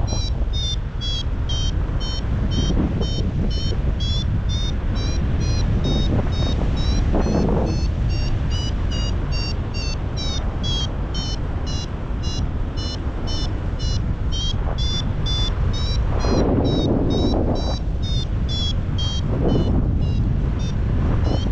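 Paragliding variometer beeping quickly and steadily, about three short high beeps a second, its pitch drifting up and down: the vario's climb tone, signalling the glider is rising. Steady wind noise rushes on the microphone underneath, swelling a few times.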